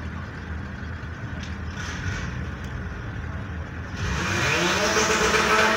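Honda Civic engine running low at the drag strip start line; about four seconds in it gets suddenly louder and the revs climb steadily.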